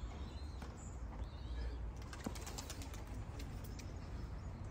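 Racing pigeons flying overhead: faint scattered wing clicks and flapping over a steady low rumble.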